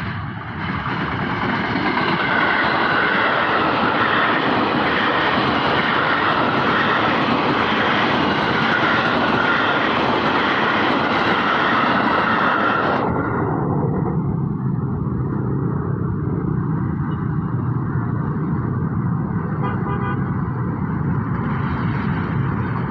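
A train passing close by, a loud steady rush of wheel and rail noise that stops suddenly about halfway through, leaving a lower traffic rumble.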